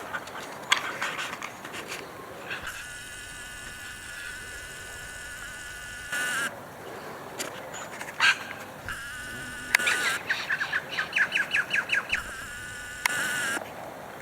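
An insect buzzing close by in stretches of a few seconds that start and stop abruptly, with a run of quick pulses near the end and a few sharp clicks.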